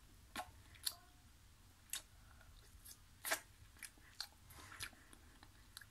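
Faint, wet mouth smacks and tongue clicks of a child sucking on a hard candy held on a plastic ring, in about eight short, scattered clicks.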